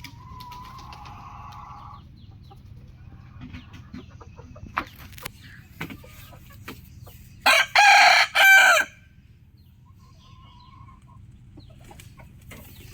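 A rooster crowing once, loudly, about seven and a half seconds in, the crow lasting just over a second. Before it come a fainter drawn-out call and scattered short clucks.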